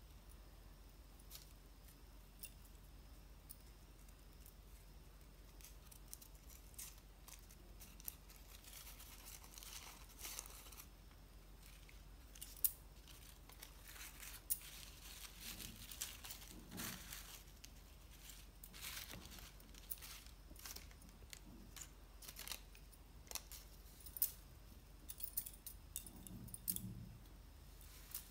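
Faint rustling and crinkling of crepe-textured kite paper as the petals of a paper flower are pinched and shaped by hand, with scattered small clicks and a few soft taps. It grows busier about a third of the way in.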